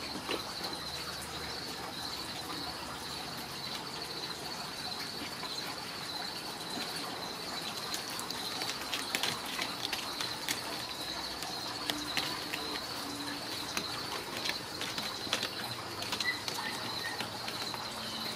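Crickets chirping in a steady high trill, with scattered sharp scratches and clicks in the middle stretch as a kitten claws and climbs a cat-tree post.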